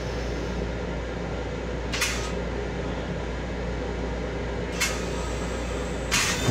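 Steady low rumble and hum inside the restroom of an M7 electric railcar, with three short hisses: about two seconds in, near five seconds, and a longer one near the end.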